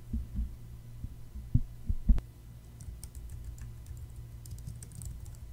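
Typing on a computer keyboard: faint, quick key clicks from about halfway through, over a steady low hum. A few low thumps come in the first half.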